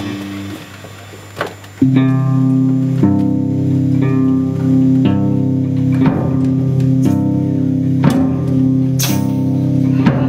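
Live music on electric guitar: a chord rings out and fades, then about two seconds in a steady repeating figure starts, with a note struck about once a second over a sustained low tone.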